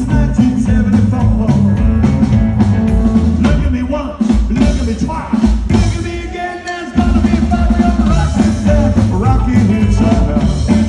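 Live rockabilly band playing loud: electric guitar, slapped upright bass and drums in an instrumental stretch with no lead vocal. About four seconds in, the bass and drums drop out for a stop-time break of roughly three seconds, then the full band crashes back in.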